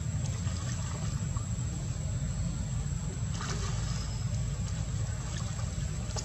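Light water sloshing and trickling as macaques move in shallow muddy water, with a few small splashes, the clearest about three and a half seconds in. A steady low rumble runs underneath.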